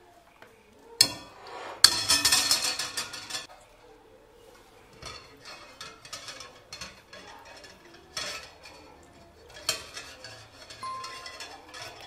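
Metal oven wire rack clinking and rattling against a ceramic bowl as a whole chicken is tied to it by the legs: a sharp clink about a second in, a loud rattling clatter for a second and a half, then lighter ticks and two more sharp clinks near the end.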